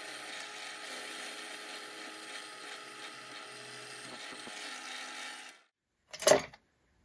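A tool working wood with a steady, even scratchy noise that stops about five and a half seconds in. Near the end comes one brief, loud whoosh.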